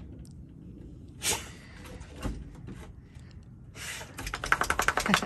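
Pit bull dog sniffing with her nose in the snow, ending in a quick, rapid run of sniffs over the last second or so.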